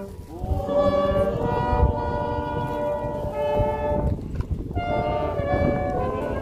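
Slow music of long, held chords that change every second or two, with a low rumble of wind on the microphone underneath.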